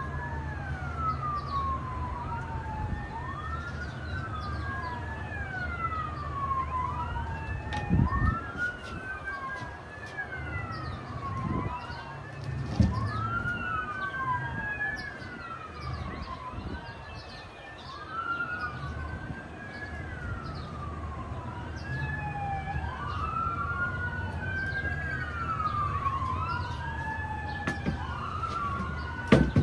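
Emergency vehicle sirens wailing, rising and falling every couple of seconds in overlapping sweeps. A few sharp knocks of wood and clamps being handled stand out, the loudest about a quarter of the way in and near the end.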